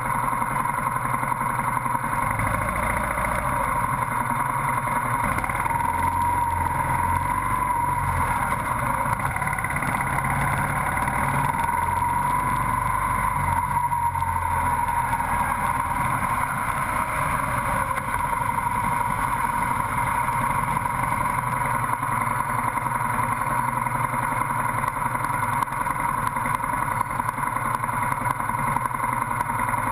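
Motorcycle engine running while riding slowly through city traffic, its note rising and falling a few times in the first half.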